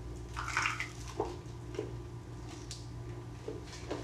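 Two people chewing mouthfuls of fish tartare on sourdough toast: a wet bite and crunch about half a second in, then a few small mouth clicks, over a steady low room hum.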